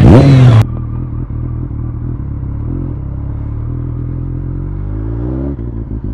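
BMW K1200S motorcycle engine. For about the first half second it is loud as the bike rides past, its pitch falling. After that it is heard from on the bike, running steadily at low revs, and rises in pitch near the end as the throttle opens.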